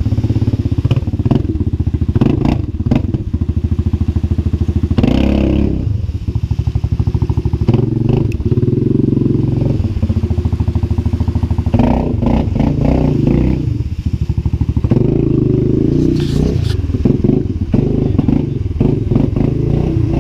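Yamaha Grizzly 700 ATV's single-cylinder engine running at low revs as the quad wades up a shallow rocky stream, easing off and picking up again a couple of times. Water splashes and the tyres knock on stones.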